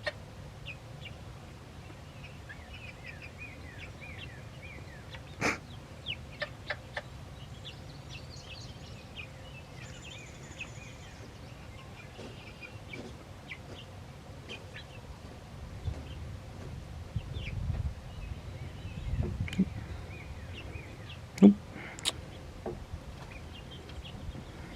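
Young chickens, about eight weeks old, peeping with many short, faint, downward chirps scattered throughout. Two sharp clicks stand out, one about five seconds in and a louder one a few seconds before the end.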